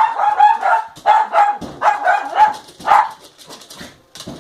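A dog barking in a rapid run of short, high-pitched barks, two or three a second, dropping off near the end. The barking is agitated, the dog's reaction to a closed door.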